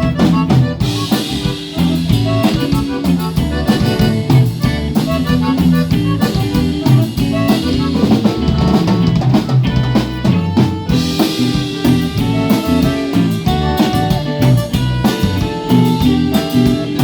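Live band playing an instrumental passage of a cumbia between sung choruses, with drums keeping a steady beat under held instrumental notes.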